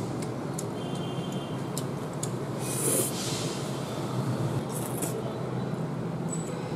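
Steady background noise, with a brief wet splash about three seconds in as egg noodles drop back into a bowl of broth, and a few faint clicks of wooden chopsticks.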